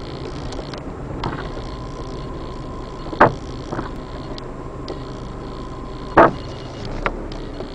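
Steady vehicle cabin noise while driving through a flooded street, broken by two short sharp knocks about three and six seconds in, with a faint steady high tone between them.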